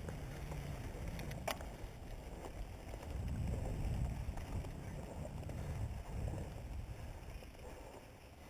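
Mountain bike rolling along a dirt singletrack: a steady low rumble of tyres over the trail and wind buffeting the camera microphone, with one brief sharp sound about a second and a half in.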